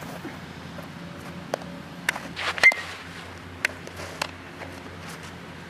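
A handful of sharp knocks over a steady low hum, the loudest a little over two and a half seconds in with a brief ringing tone: a baseball struck by an aluminum bat during infield ground-ball practice.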